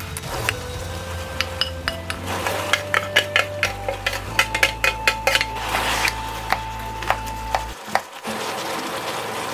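Wooden spatulas clacking and scraping against a frying pan as pork ribs are stir-fried, with sliced onion and green onion tipped in from a metal container: a busy run of sharp knocks.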